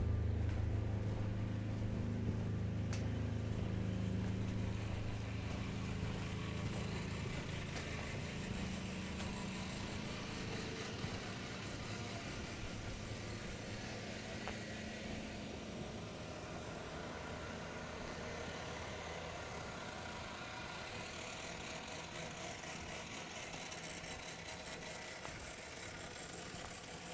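Motor vehicle engine running with a low, steady hum that fades away over the first ten seconds or so.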